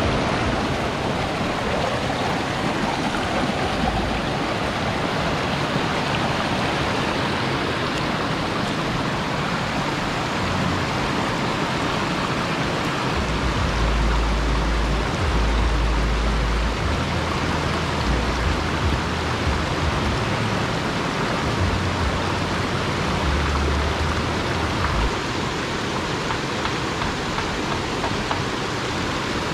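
Rocky mountain river rushing and splashing over boulders in small cascades: a steady, even wash of water noise. Low rumbles come and go through the middle.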